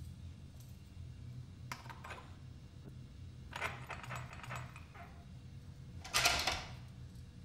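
Public-toilet cubicle door rattling in three short bursts over a low steady hum, the loudest about six seconds in.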